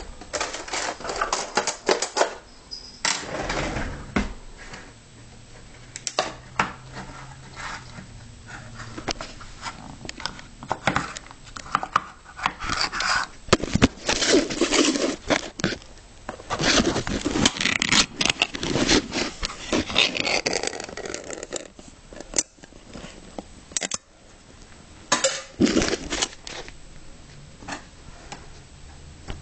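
Irregular clinks, knocks and scrapes of a dish and utensil being handled, with rustling, as cat food is dished up; busiest in the middle.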